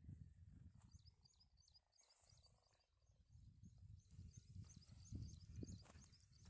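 Faint wind rumbling on the microphone, with a small bird chirping over and over in short, high notes from about a second in.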